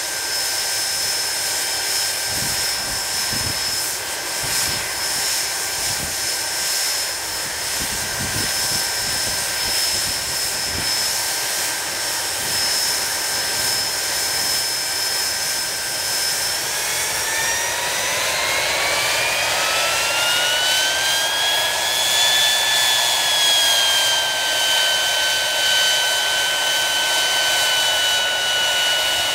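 Rolls-Royce Spey turbofan engines of a Hawker Siddeley Nimrod running on the ground with a steady whine at idle. About seventeen seconds in they spool up: the whine rises in pitch for about five seconds, eases back slightly and then holds at the higher power setting.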